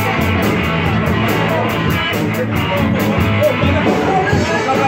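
Live rock band playing loud, with distorted electric guitars, a quick steady beat and a male singer's vocals.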